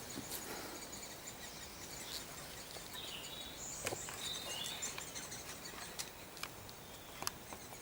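Faint bird calls in woodland: a few short chirps about three to four seconds in, and scattered sharp ticks over a quiet background hiss.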